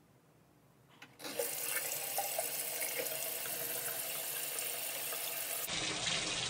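Bathroom sink tap turned on about a second in, water running steadily into the basin.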